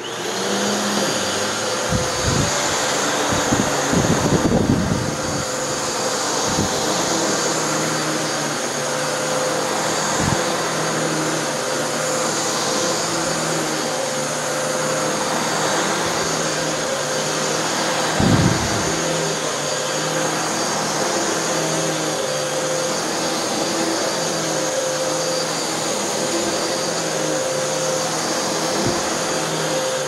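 Hoover NanoLite 12-amp bagless upright vacuum cleaner switching on and running steadily as it is pushed back and forth over carpet to pull sand out, with a few low thumps as it is moved.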